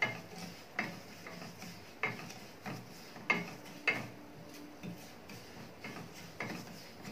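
Wooden spatula stirring and scraping fine wheat dalia as it roasts in ghee in a kadai, with a soft scrape or tap about every second.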